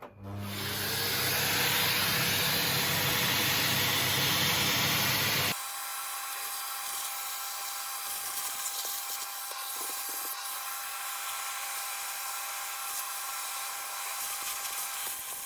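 Vacuum cleaner switched on, spinning up over about a second into a loud, steady hiss with a low motor hum while sucking dust from inside a MacBook. About five seconds in the sound drops suddenly to a quieter, thinner hiss with a steady whine.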